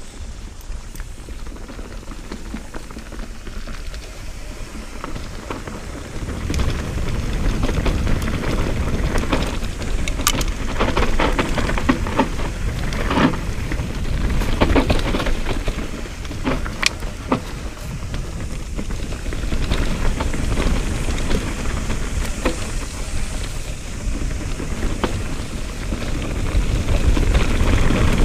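Mountain bike rolling fast down a dirt singletrack: a dense crackle of tyres over dirt and pine litter, dotted with sharp clicks and rattles from the bike, over a low wind rumble on the camera microphone. It gets louder about six seconds in and again near the end.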